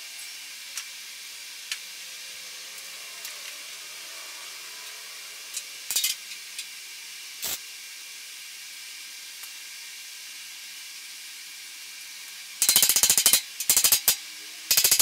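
Electric arc welding on steel tubing: three short bursts of rapid crackle near the end, each under a second, the pattern of tack welds. Two shorter bursts come earlier, over a steady background hiss.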